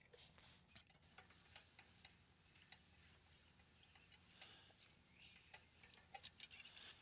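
Near silence, with faint scattered light metal clicks and scrapes, a little busier near the end: a feeler gauge being slid between the rocker arms and valve stems of a Kohler SV725 V-twin to check valve clearance.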